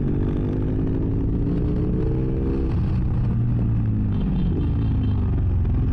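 2006 BMW F800S's Rotax parallel-twin engine through a GPR Furore exhaust with its dB-killer removed, heard from inside the rider's helmet. The revs climb slowly for about two and a half seconds, drop suddenly, then carry on lower.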